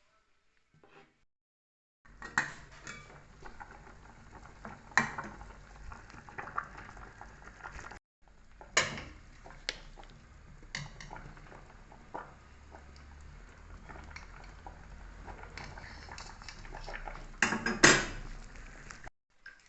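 Kitchen utensils clinking, knocking and scraping against pots and dishes, in two stretches broken by a brief silence, with the loudest clatter near the end.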